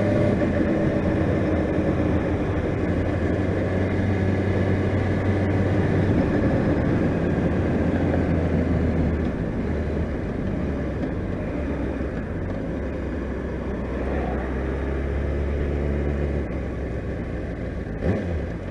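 Honda CBR600RR inline-four sport-bike engine running under way, its note easing and the overall sound dropping about halfway through as the bike slows.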